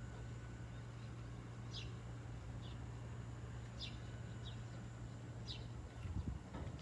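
A small bird chirping: single short chirps that drop in pitch, one every second or so, over steady wind noise and a low hum. A brief low rumble comes near the end.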